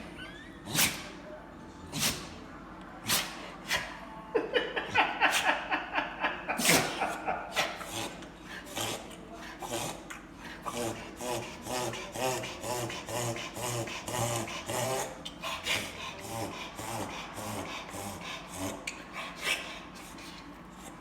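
A pet sneezing, set off by getting into insulation: a few sharp single sneezes about a second apart, then from about four seconds in a long fast run of sneezes, several a second, thinning out over the last few seconds.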